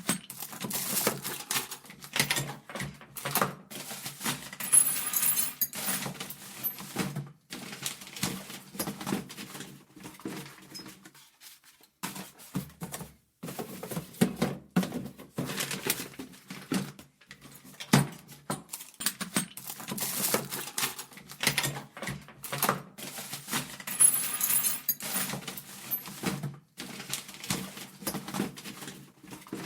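Someone rummaging through workbench drawers: drawers slide and knock while the small items inside rattle, clink and jangle, in bursts broken by short pauses.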